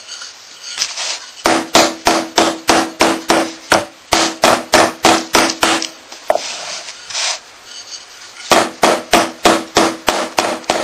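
Wooden rolling pin beating a block of puff pastry dough, with the fat block folded inside, on a wooden board. Rapid knocks about four a second come in three runs with short pauses between them. The beating softens the dough before it is rolled out.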